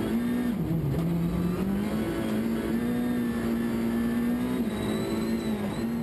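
Citroën DS3 WRC's 1.6-litre turbocharged four-cylinder rally engine at high revs, heard from inside the cabin. Its pitch dips about half a second in and climbs back, holds steady, then dips briefly once more near the end.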